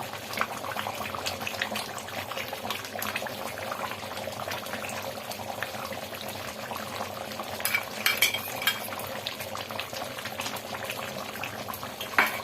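Food sizzling and bubbling in a cooking pan, a steady fine crackle, with a few sharper clicks about eight seconds in and again near the end.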